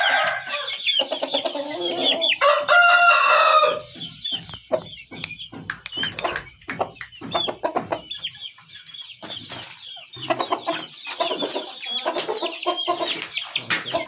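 Aseel chickens clucking, with a rooster crowing once for just over a second about two and a half seconds in, followed by many short clucks.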